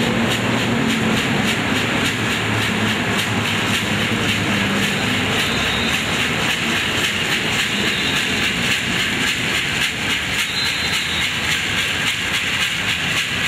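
Gourd rattle shaken hard in a steady rhythm, a dense rattling hiss with even beats, accompanying a dance.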